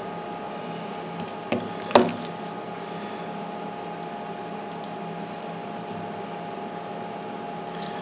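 Camera being handled: a light knock about one and a half seconds in and a sharper one at about two seconds, over a steady electrical hum with several tones.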